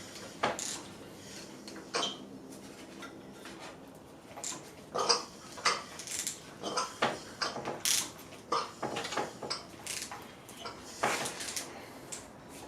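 Hand tools and metal engine parts clinking and knocking as they are handled, in irregular, scattered strikes.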